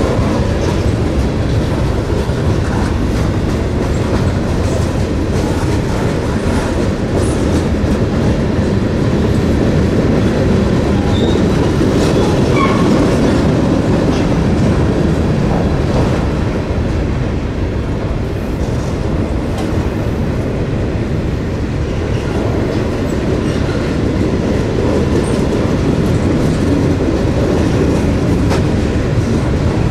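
Norfolk Southern mixed-freight train's cars rolling past, a steady rumble and clatter of steel wheels on the rails, with a few brief faint squeals near the middle.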